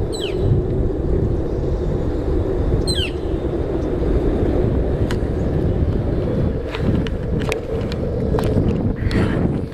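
Skateboard wheels rolling on smooth concrete: a steady, loud low rumble as the board carves through the bowls, with a few sharp clicks in the second half and two short high squeaks, one at the start and one about three seconds in.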